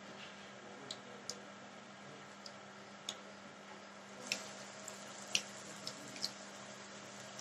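Hot oil in a steel kadai crackling faintly, with scattered sharp pops, as a batter-coated pumpkin flower goes in to deep-fry, over a low steady hum.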